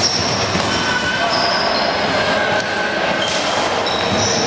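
Floorball play in a sports hall: players' sports shoes squeaking sharply on the hall floor, many short high squeaks at different pitches, over a steady echoing din of play.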